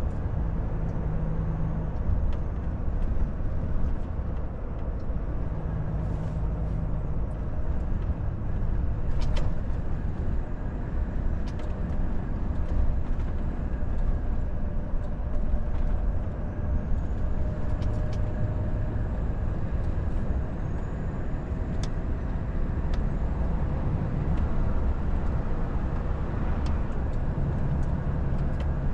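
Volvo FH truck heard from inside the cab while cruising at steady speed: a constant low engine drone mixed with tyre and road noise, with a few faint clicks here and there.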